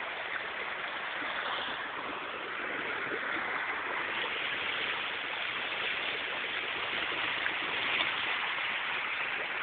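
Steady rushing of a flowing river's water.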